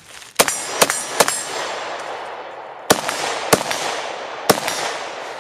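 PSA AK74 rifle in 5.45×39 firing six single shots: three quick ones in the first second and a half, then three more spaced further apart, each with its echo trailing off.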